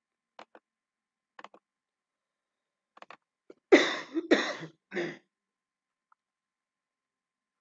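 A few faint computer mouse clicks in the first three seconds, then a man coughs and clears his throat: three loud bursts close together from about three and a half to five seconds in.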